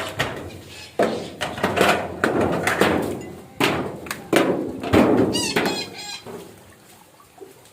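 A parakeet giving a run of loud, harsh squawks, one every half second or so, that tail off after about six seconds.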